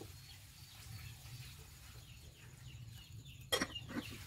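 An aluminium pot lid set down on the metal pot with a sharp clink about three and a half seconds in, and a lighter knock near the end. Faint bird chirps in the background.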